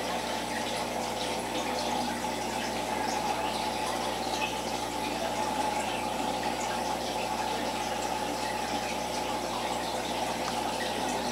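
Aquarium water running steadily: an even trickling, bubbling rush with small scattered pops, from the tank's filter or aeration.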